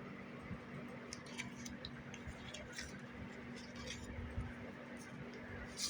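Photo prints being handled, with scattered faint light clicks and ticks over a steady low electrical hum.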